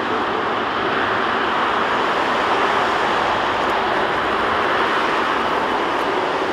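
Airbus A330-300's Rolls-Royce Trent 700 turbofan engines running at low taxi power as the airliner turns onto the runway: a steady jet rush that swells slightly midway.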